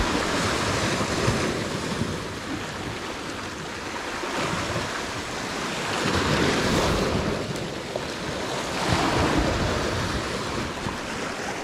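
Sea waves surging and washing against a rocky shoreline, the rush swelling and easing several times, with wind on the microphone.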